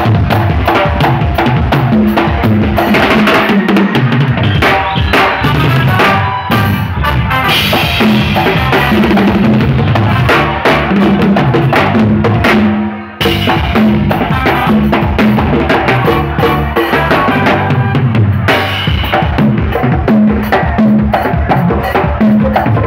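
Live band playing, led by a miked drum kit with kick drum, snare and rimshots over pitched band parts. The whole band breaks off for a moment about 13 seconds in, then comes back in.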